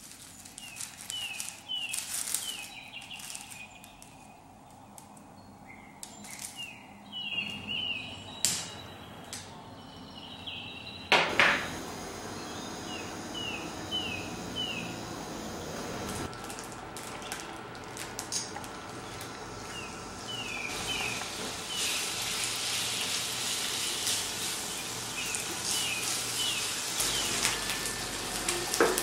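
A wire skimmer clinks against a frying pan and plate as fried chicken pieces are lifted out of the oil, with one sharp clack about eleven seconds in. Short runs of quick small-bird chirps recur in the background. Oil sizzling in the pan grows louder in the second half.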